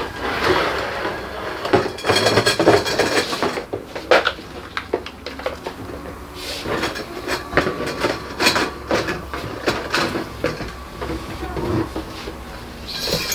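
Cardboard box scraping and rustling as a shoe rack's taped black plastic side panels are pulled out and set on a wooden floor, then a run of irregular plastic clattering, clicks and knocks as parts are handled.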